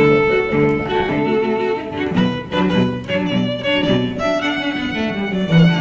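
Background instrumental music led by bowed strings, a quick run of short changing notes over a lower line.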